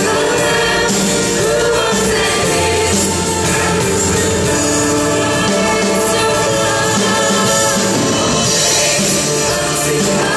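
Church choir singing a worship song with band accompaniment, loud and continuous.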